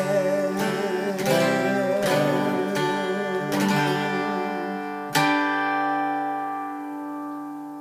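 Acoustic guitar strummed in chords about every 0.7 s. A final chord a little past five seconds is left to ring and slowly fade, closing the song.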